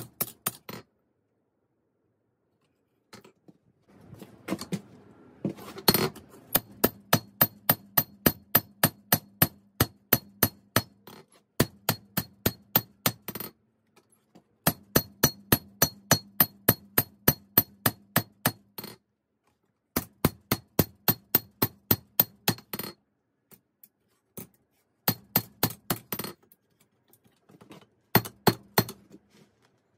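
Hand hammer striking 5160 spring steel on an anvil in runs of about four ringing blows a second, with short pauses between the runs.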